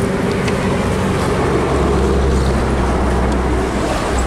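A motor vehicle engine running nearby, a steady hum with a deep low rumble coming in about two seconds in, and a few faint clicks.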